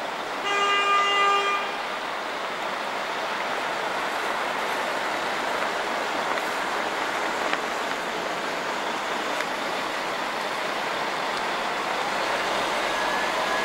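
A vehicle horn toots once, for about a second, near the start. After it, an articulated city bus drives past on a wet road with a steady hiss of tyres on wet asphalt and engine noise.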